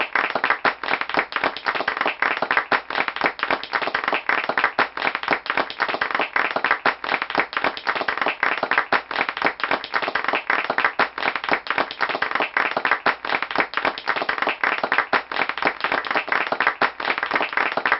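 Audience applauding: many people clapping at once, the claps dense and overlapping at a steady level.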